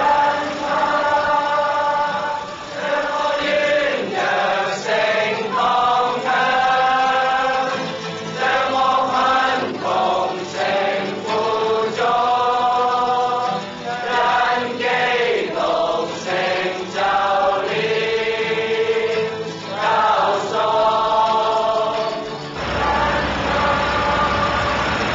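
A group of men singing a hymn together, in long held phrases. About two and a half seconds before the end the singing stops and gives way to a steady low rumble of street traffic.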